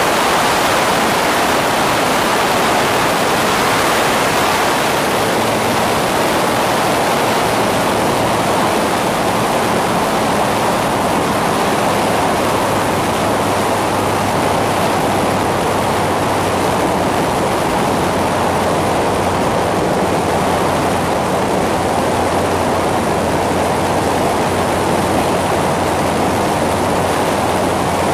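Cabin noise of an Aero AT-3 light aircraft in level flight: a steady rush of airflow and the Rotax 912 engine and propeller, with a low, even drone underneath.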